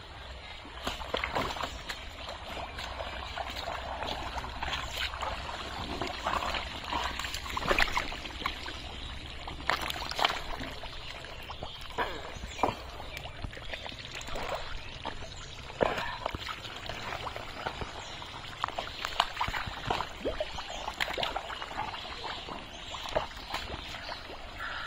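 Thick pond mud and shallow muddy water squelching and splashing as hands dig and grope through it for fish, with irregular wet slaps and sloshes.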